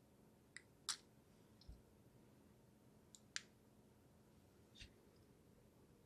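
Near silence, broken by a handful of faint, sharp clicks and one soft low tap, scattered and irregular, from small parts being handled by hand.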